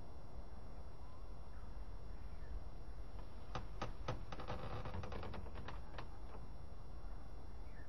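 A quick, uneven run of about a dozen clicks and taps in the middle, lasting about two and a half seconds, over a steady low rumble and hiss. The audio is slowed down.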